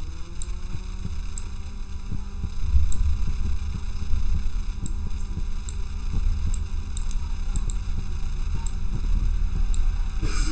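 A steady low hum and rumble of background noise, with faint short clicks scattered through it.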